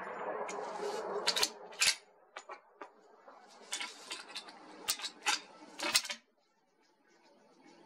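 The rolling echo of a .338 Lapua Magnum rifle shot fades over the first two seconds. Then a run of sharp metallic clicks and clacks follows as the rifle's action is worked between shots. The sound cuts off abruptly after about six seconds.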